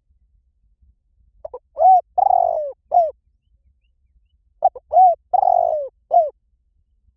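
Spotted dove cooing: two identical phrases about three seconds apart. Each phrase is a couple of short soft notes, an arched coo, a longer rolling coo and a final arched coo.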